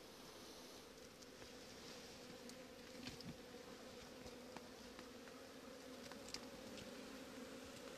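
Faint, steady hum of a mass of honeybees swarming around an opened hive, with a few light ticks.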